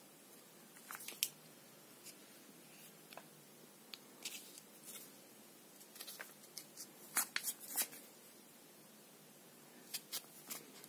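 Foil sachet of grease crinkling faintly as it is handled, with a few scattered crackles and rustles.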